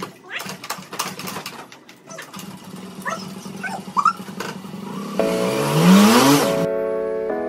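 Scattered clicks and knocks, then a low steady hum. About five seconds in, a whooshing edit-transition effect with a rising tone sweeps through, and background music with sustained chords starts near the end.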